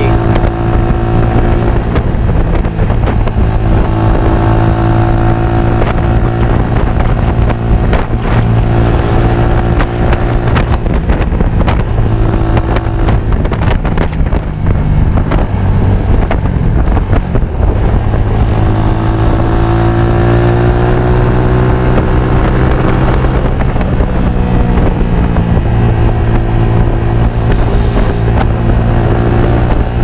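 Motorcycle engine running under way, its pitch sliding up and down with the throttle and climbing as it speeds up about two-thirds of the way through, with wind rushing over the microphone.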